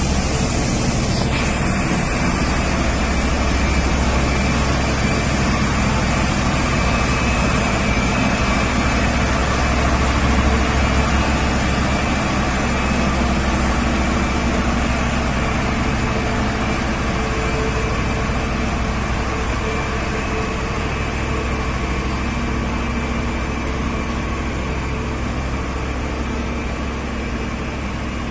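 Steady, loud engine rumble and hiss of a TaxiBot aircraft tractor towing an Airbus airliner across the apron, with faint steady whining tones over it. The noise eases slightly near the end.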